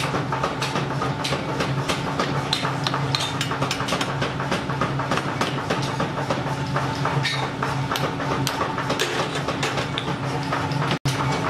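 Power hammer pounding a red-hot steel axe blank in quick repeated blows, about three or four a second, over the steady hum of the machine's motor.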